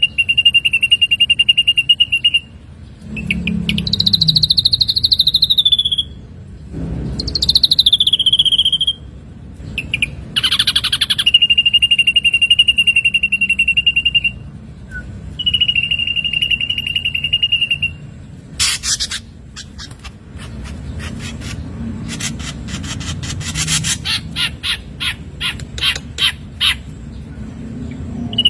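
Ashy drongo singing a varied phrase: long, steady high whistles, falling whistled notes and a short harsh buzzy note, then a run of rapid dry clicks and rattles in the last third.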